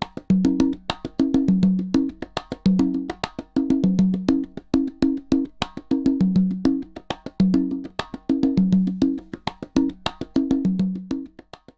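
Rhythmic percussion test music: a fast, even run of sharp wood-block-like clicks over short, repeating low notes. It serves as a level-matching signal between the front-left and left-surround speakers.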